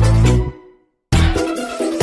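Background music: one electronic track with a steady bass dies away about half a second in. After a brief silence a different tune with a beat starts at about a second.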